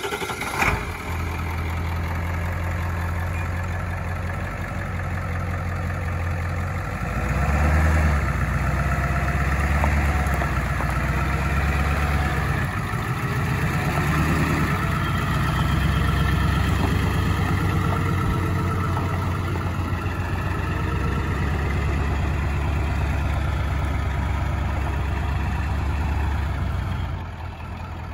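A 2001 Ford F-550's 7.3 L Power Stroke turbo-diesel V8 idling steadily just after being started. The sound gets louder from about seven seconds in and drops again near the end.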